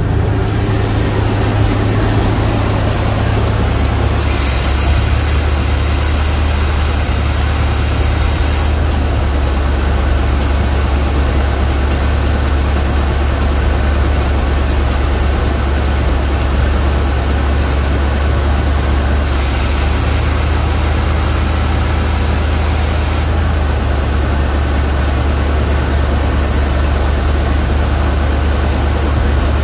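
Truck engine idling with the air conditioning switched on and running, without the screech it had the day before. A higher hiss comes in twice, each time for about four seconds.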